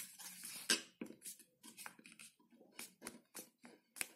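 A square sheet of paper being folded and creased by hand: a faint string of short crinkles and taps as the folds are pressed flat.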